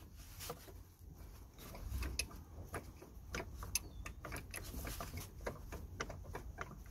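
Light, irregular clicks and ticks of gloved hands handling plastic fuel lines and their connectors under a car, during fuel filter removal.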